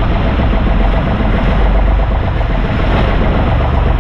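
Fishing boat's engine running steadily under way, mixed with the rush of water and wind.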